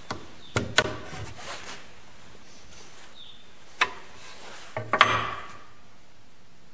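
Steel combination wrench on the nut of a half-inch carriage bolt through a timber joint, giving a few light metal clicks as it is turned, then a louder knock about five seconds in as the wrench is set down on the wood.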